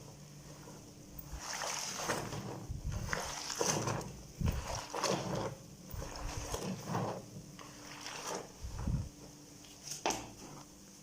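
Clothes being washed by hand in a basin: irregular sloshing and splashing of water as the laundry is scrubbed and swirled.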